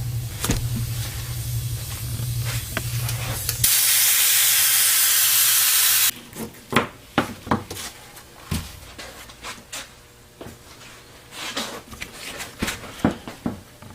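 A low steady hum, then about four seconds in an upholstery spray-adhesive gun hisses in one steady burst of a little over two seconds and cuts off sharply. Scattered light taps and rustles of handling follow.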